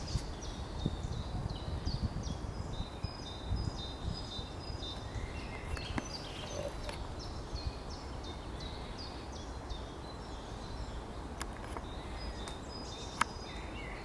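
Woodland ambience: small birds singing and chirping in quick repeated high phrases over a steady low rumble. A sharp click near the end.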